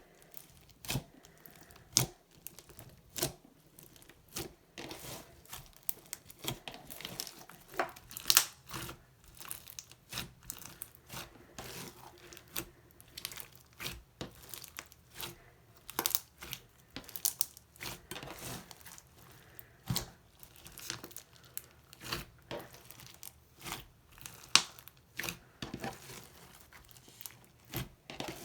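Slime being mixed and kneaded by hand, giving irregular sharp pops and crackles, about one or two a second.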